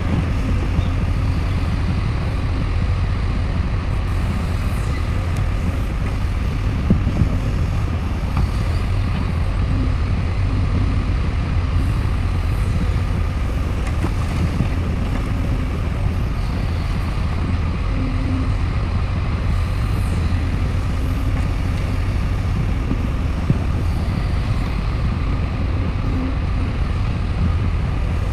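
Heavy diesel engines of an excavator and a dump truck running steadily, a constant low rumble, with a few faint short knocks.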